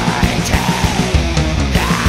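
Heavy metal music with fast, steady drum hits, about six a second, under a dense wall of sound.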